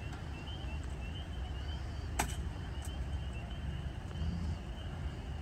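Steady low wind rumble on the microphone, with faint high chirps repeating in the background and a single sharp click about two seconds in.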